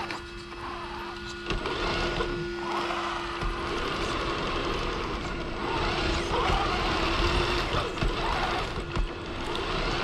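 Electric motor and gear whine of radio-controlled scale trucks driving, rising and falling in pitch with the throttle, with scattered clicks and knocks from the wheels over the path.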